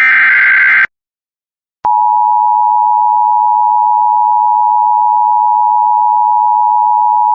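Emergency Alert System weather alert: a burst of about a second of SAME digital header tones ends, then after a second's pause a steady single-pitch attention tone near 1 kHz begins about two seconds in and holds, signalling the start of a new warning.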